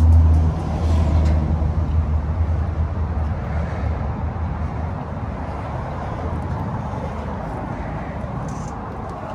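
Pickup truck engine idling, heard through its side-exit exhaust: a steady low hum, loud near the tailpipe for the first half-second, then growing fainter as the sound moves away toward the rear of the truck.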